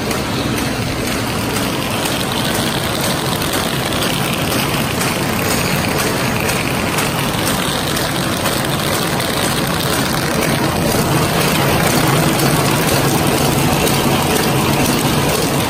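Paper bag making machine running with a steady mechanical noise, growing slightly louder about two-thirds of the way through.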